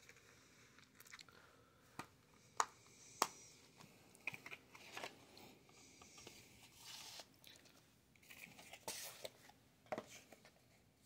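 Hands handling a plastic 4K Blu-ray case and its cardboard slipcover: a few sharp plastic clicks about two to three seconds in, as the case is shut, then scattered scraping and rustling of cardboard and plastic.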